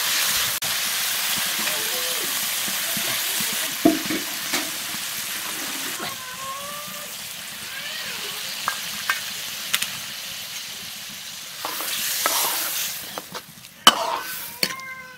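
Cauliflower and tomato sizzling in oil in an aluminium kadai while a steel ladle stirs, with a few sharp knocks of the ladle against the pan. The sizzle turns quieter about halfway through, once the pan holds a watery gravy.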